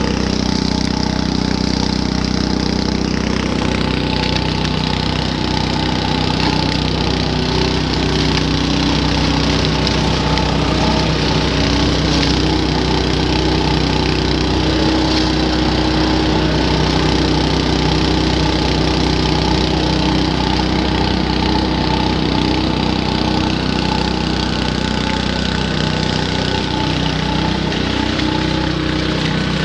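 Engine-driven garden leaf vacuum running steadily, a constant engine hum with a dense rushing noise over it.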